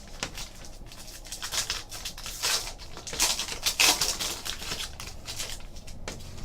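Trading cards being handled and flicked through by hand: a quick run of crisp snaps and rustles, busiest and loudest around the middle.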